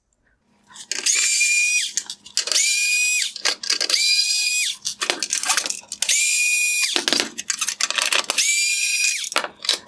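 Cordless power driver with a T20 Torx bit backing out five screws that hold the headlight bezels: five short whirring runs of about a second each, each spinning up and winding down, with small clicks between them.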